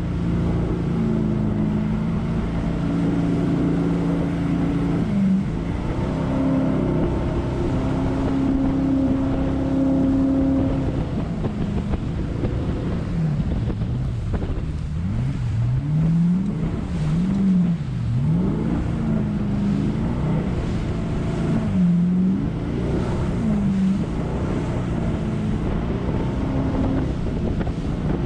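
Jet boat engine running hard through whitewater rapids. It holds a steady pitch for the first ten seconds or so, then its revs dip and climb again and again as the throttle is worked, over the rush of water and wind on the microphone.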